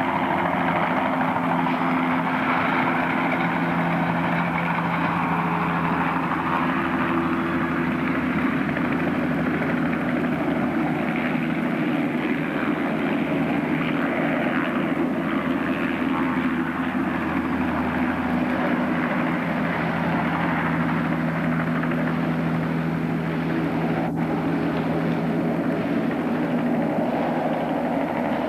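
Outboard motor running at a steady pitch, with one brief click about 24 seconds in.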